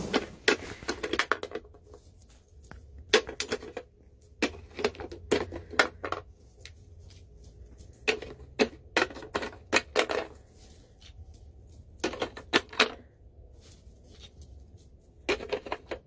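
Plastic shapes clicking and clattering against a plastic toy shape sorter as a raven pushes them into the holes with its beak. The clicks come in quick clusters of several knocks every couple of seconds.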